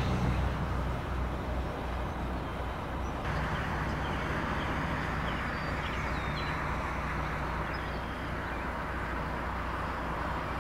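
A vehicle engine idling with a steady low hum, with birds chirping in short scattered calls from about three seconds in.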